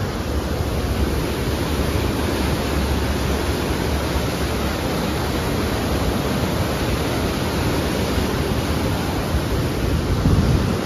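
Swollen Koshi River rushing through the barrage gates in flood, a loud, steady roar of churning water.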